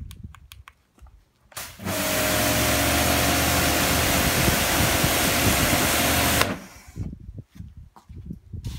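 Kärcher K7 pressure washer spraying: the motor and pump start about two seconds in and run steadily with the hiss of the water jet for about four and a half seconds, then cut off suddenly.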